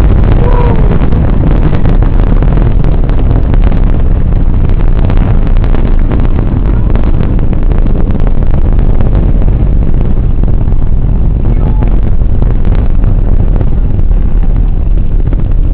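Ares I-X solid rocket booster at liftoff: a loud, steady deep roar with continual crackling.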